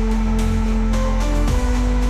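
Background electronic music with a steady beat, sustained synth notes and deep bass.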